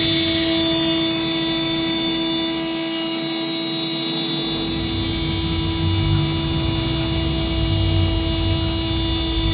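CNC router spindle running at a steady speed, a constant high-pitched whine with a low rumble joining in about halfway through.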